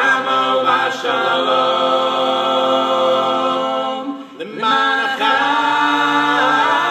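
Male vocal group of four singing in close harmony, holding long sustained chords, with a short break about four seconds in before the next phrase begins.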